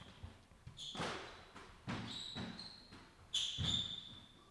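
Squash rally: the ball cracking sharply off rackets and the court walls several times, with players' shoes squeaking on the wooden floor, the longest squeak near the end.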